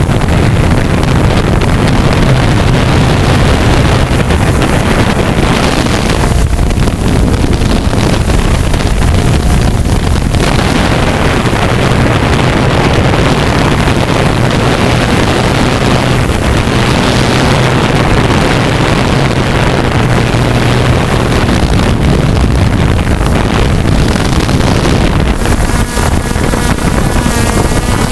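Steady drone of a DJI F550 hexacopter's six electric motors and propellers, picked up by the camera riding on the craft, with wind buffeting the microphone. The pitch shifts near the end as the motors change speed.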